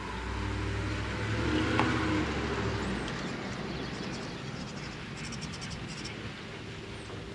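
A motor vehicle's engine: a low hum that swells over the first two seconds and fades away by about three seconds in.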